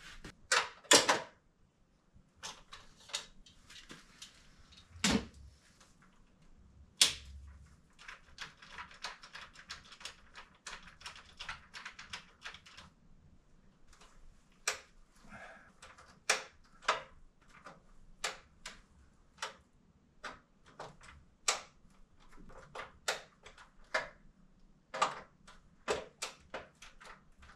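Irregular metal clicks and taps from work inside an old Cutler-Hammer breaker panel as the terminal screws on the neutral and ground bars are tightened, with a few louder knocks about a second in and again around five and seven seconds in.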